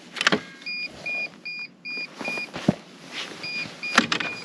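Greenworks 80V battery snowblower's warning beeper giving short high beeps, about two and a half a second: a run of five, then another run starting about three and a half seconds in, as the machine will not start. The beeping is the sign of a battery too cold to run. A few clicks and knocks sound among the beeps, the loudest about four seconds in.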